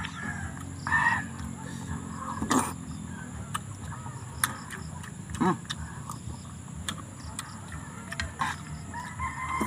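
Spoon and fork clinking against a metal pan in short, scattered clicks while eating, with chickens clucking in the background. A rooster starts to crow near the end.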